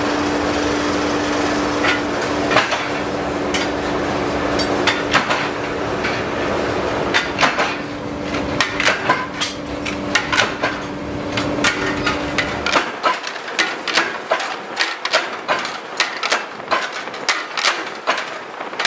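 Rolling mill running with a steady hum while a red-hot knife blank is worked through its steel rollers with tongs, giving repeated sharp metallic clacks and knocks. The hum stops abruptly about thirteen seconds in, and the clacks then come quicker, several a second.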